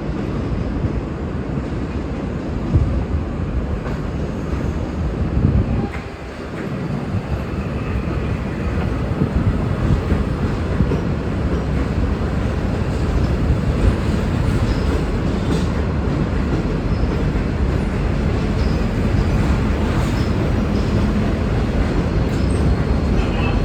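V/Line N class diesel-electric locomotive, with its EMD 12-645 engine, moving its N set passenger cars during shunting: a steady engine and rolling-stock rumble, with a brief drop in level about six seconds in.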